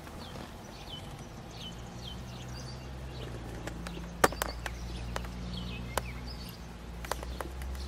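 Quiet outdoor background: faint bird chirps and a low steady hum, with several sharp, separate clicks in the second half.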